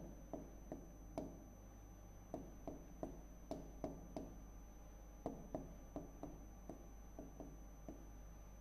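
Fingertip taps on a touchscreen display as a search is typed on its on-screen keyboard: about twenty soft, irregular knocks, two or three a second, with a short break a little after a second in.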